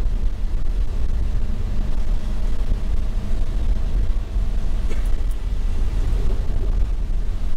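Toyota HiAce Commuter van driving, a steady low engine and road rumble heard from inside the cabin.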